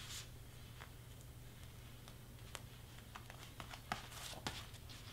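Faint handling sounds: a few light, scattered taps and rustles of cardstock and heat-transfer vinyl being worked on a table, over a steady low hum.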